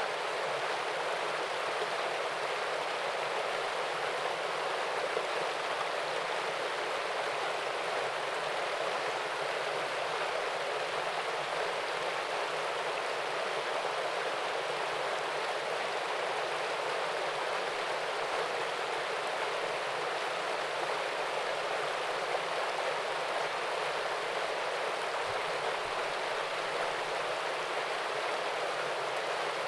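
Small waterfall and stream: water running and splashing over rocks in a steady, even rush.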